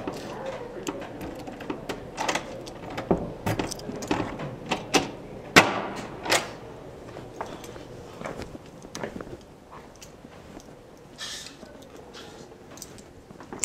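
Irregular clatter of sharp clicks and knocks, busiest and loudest in the first half, thinning out after about seven seconds.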